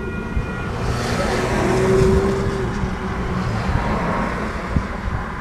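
Grade-crossing warning bell ringing steadily and stopping under a second in as the signal shuts off. Then a car drives over the crossing, its tyre and engine noise swelling to a peak about two seconds in and fading away.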